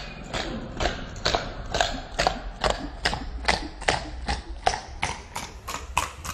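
A horse's hooves clip-clopping on a concrete street, a steady beat of roughly two and a half sharp hoof strikes a second.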